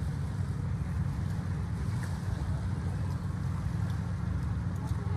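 Wind buffeting a phone's microphone: a steady, fluttering low rumble.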